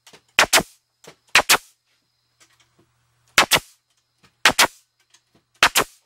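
Pneumatic nailer firing five times into the dovetailed corners of a wooden beehive box, each shot a sharp double crack, a second or two apart.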